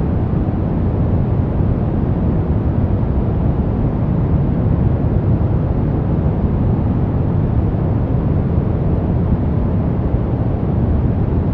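Steady relaxation noise track sold as white noise, heavier in the lows than true white noise: an even, deep rushing hiss that does not change.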